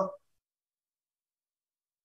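Near silence: a man's speaking voice cuts off just after the start, then complete silence.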